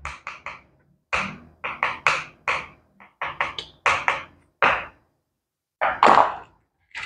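An irregular series of short, sharp taps and knocks, two or three a second, with a pause of about a second near the end.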